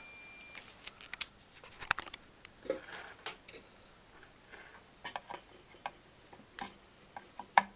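Scattered light clicks and taps from handling a welding inverter's circuit board and test gear, with a steady high-pitched electronic beep that stops about half a second in.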